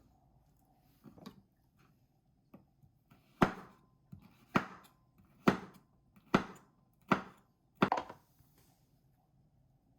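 Six sharp knocks, evenly spaced just under a second apart, each with a short ringing tail.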